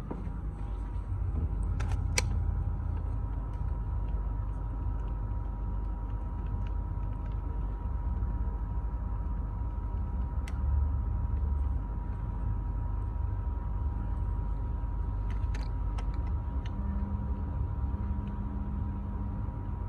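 Daikin mini-split air conditioner running: a steady low hum with a steady mid-pitched tone over it, and a few faint clicks.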